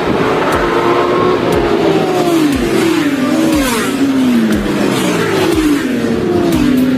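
Racing motorcycle engines at high revs, the engine note repeatedly sweeping down in pitch and climbing again.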